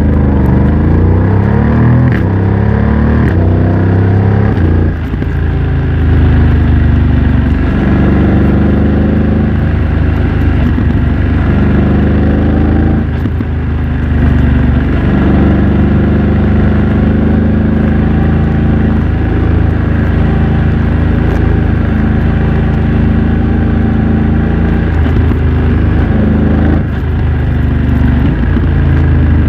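BMW F900 XR's parallel-twin engine through a MIVV X-M1 aftermarket exhaust, under way on the road. Revs rise over the first few seconds, then it runs mostly steady, with brief dips in level about five, thirteen and twenty-seven seconds in.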